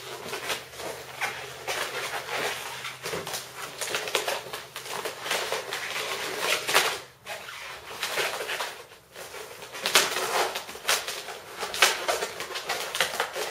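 Latex modelling balloons squeaking and rubbing against each other as they are twisted into loop twists, in irregular bursts of squeaks.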